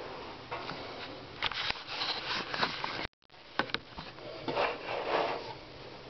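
Irregular rubbing and handling noises against wooden boards, with several light knocks and clicks. The sound cuts out abruptly for a moment about halfway through.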